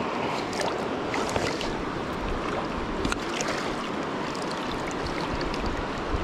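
Shallow river running over a stony bed: a steady rush of water, with a few brief ticks.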